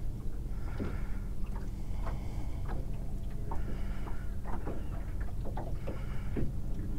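Small waves lapping and slapping against a boat's hull in irregular splashes, over a steady low hum.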